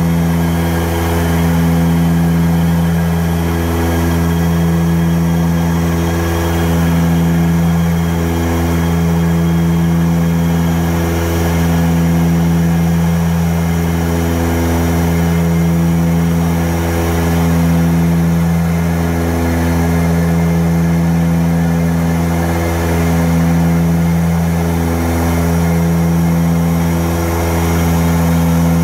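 Antonov An-24B's two Ivchenko AI-24 turboprop engines and propellers droning steadily at cruise, heard inside the cabin. A deep hum that swells and eases in a slow, regular throb about every two seconds.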